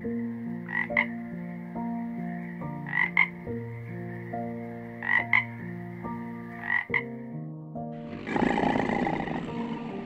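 A frog croaking in pairs about every two seconds over background music with sustained notes. Near the end a loud, noisy sound comes in and is the loudest part.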